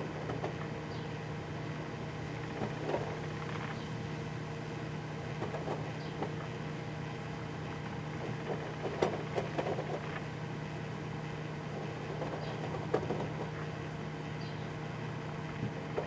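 Sharp Half-Pint microwave oven running: a steady low hum, with small faint crackles and ticks scattered through, a cluster of them about nine seconds in.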